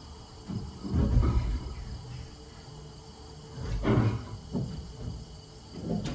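A few dull knocks and bumps, about a second in, near four seconds and again near the end, as a wooden rafter is handled into place, over a steady high chirring of insects.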